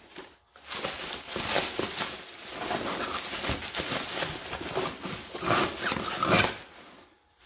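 Bubble wrap and cardboard packing crinkling and rustling as a box is unpacked by hand, in irregular surges.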